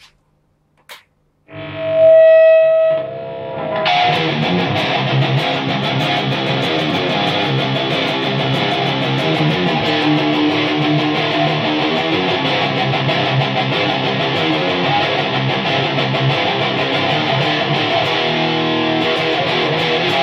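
Distorted electric guitar riffing through a homemade high-gain tube amp built on 1930s AF7 preamp and AL4 output valves, into a 4x12 speaker cabinet through a stand-in output transformer meant for 3–4 ohm cabinets. A loud ringing chord comes about a second and a half in, then tight palm-muted high-gain riffing runs on without muddiness from about four seconds.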